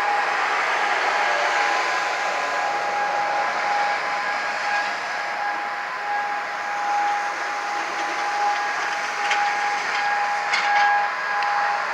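Distant Hörmann ECN electromechanical siren sounding the steady all-clear tone: one held pitch with a fainter overtone above it, over the hiss of road traffic. A few short clicks near the end.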